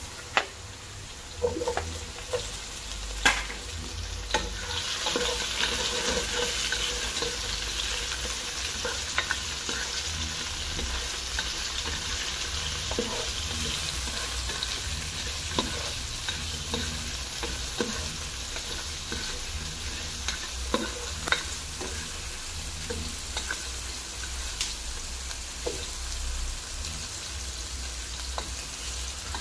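Onion, garlic and tomato wedges sizzling in hot oil in a pot, the sizzle swelling about five seconds in. A spatula stirs and scrapes the pan, with scattered clicks as it knocks against the pot.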